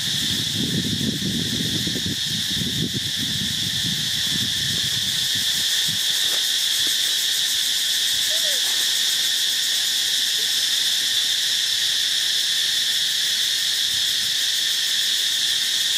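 A loud, steady chorus of insects making a shrill, unbroken drone. Low rustling runs under it for about the first five seconds, then dies away.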